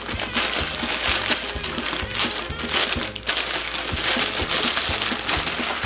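Plastic packaging bag crinkling and crackling as it is opened to get a squishy toy out.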